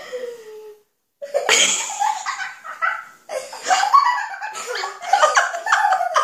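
Children laughing in repeated bursts, after a brief total drop-out about a second in.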